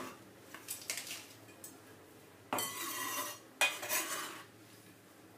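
Kitchen knife knocking a few times on a wooden cutting board while slicing endive, then two longer rustling scrapes about two and a half and three and a half seconds in, as the cut leaves are pushed off the board into a glass salad bowl.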